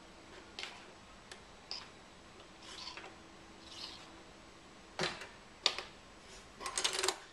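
Base-ten tens rods being set down one at a time on a table, each making a light tap or click at irregular intervals, with a quick clatter of several clicks near the end.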